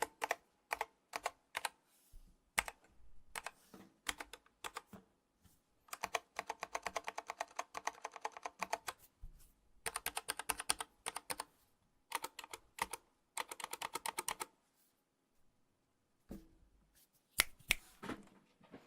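Nightfox mechanical keyboard with tactile Kailh Box Heavy Burnt Orange switches being typed on, the clack coming mostly from keys bottoming out against its all-aluminium case. Scattered keystrokes give way to quick runs of typing with short breaks, then a longer pause and a few louder clacks near the end.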